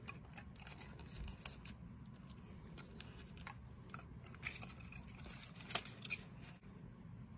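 Folded paper craft pieces rustling and crinkling as they are handled, with scattered light clicks and taps, the sharpest about a second and a half in and again about six seconds in.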